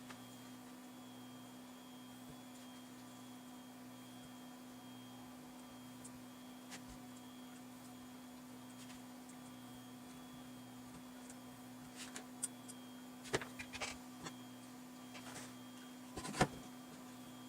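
Steady low electrical hum with a fainter pulsing hum beneath it, and several small sharp clicks and taps in the last few seconds, from desoldering work on a circuit board.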